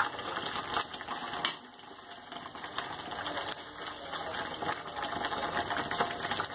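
Ground onion-tomato masala frying and spluttering in a kadhai over a gas flame: a dense, ragged crackle, with a sharp click at the very start.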